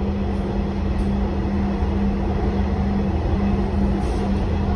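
Metro train running, heard from inside the carriage: a steady low rumble with a constant hum.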